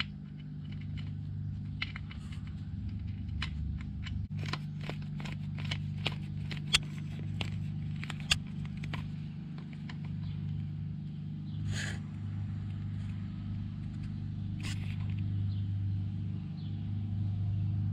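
Screwdriver turning a drain screw into a Harley Ironhead's chrome primary cover: a run of small metallic clicks and scrapes, thickest in the first half, over a steady low hum.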